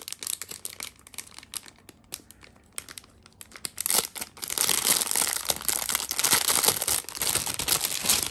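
Plastic packaging bag crinkling as hands rummage through it: scattered crackles at first, then steady, louder crinkling from about halfway through.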